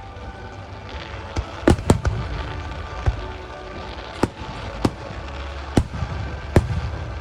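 Aerial fireworks shells bursting overhead: about nine sharp bangs at uneven intervals, several in quick succession around two seconds in, over a steady low rumble.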